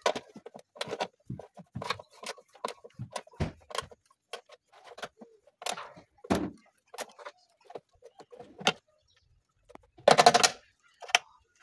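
Irregular clicks, taps and knocks of objects being handled, with a louder rattling clatter about ten seconds in.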